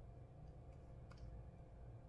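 Near silence: a low steady hum with about three faint, sharp clicks.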